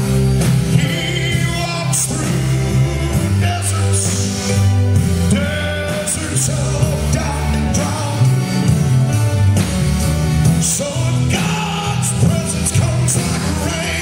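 Live church praise band playing with singing, drums and cymbals over sustained low bass notes.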